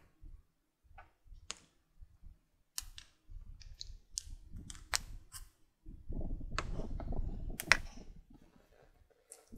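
Plastic spoon clicking and tapping against the plate and the plastic toy bullets, a dozen or so sharp separate clicks, with wet squelching of the soft pudding as it is scooped, heaviest a little past the middle.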